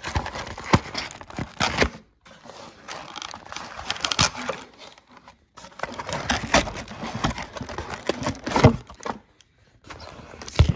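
Paper wrapping and a cardboard box crinkling, rustling and scraping as action figures are pulled out of their packaging. The handling is irregular, with sharp crackles and a few short pauses.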